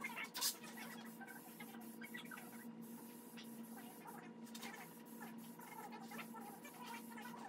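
A steady low electrical hum with scattered light clicks and small rattles of handling, one sharper click about half a second in.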